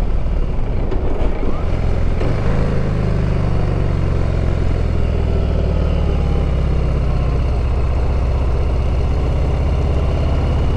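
Harley-Davidson V-twin engine running steadily as the motorcycle is ridden, its note settling to an even pitch about two seconds in, with wind rushing over the microphone.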